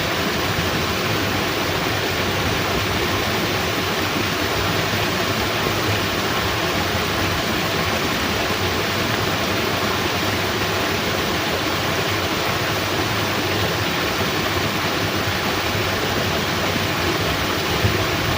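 Steady rush of water pouring through a fish-pond sluice gate.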